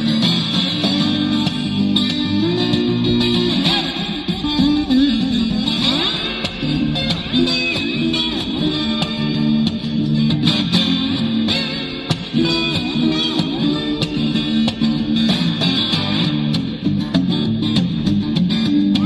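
Background music led by guitar, with bass, playing steadily.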